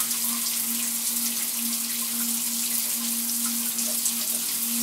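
Shower running: a steady hiss of water spraying down onto a person. A steady low hum runs underneath.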